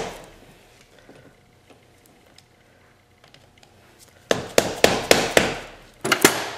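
Hammer striking a screwdriver or pry tool to drive a stuck gear shift lever off a YZ250F's shifter shaft: a quick run of about six sharp metallic strikes about four seconds in, ringing briefly, then two more near the end. The lever is not coming off.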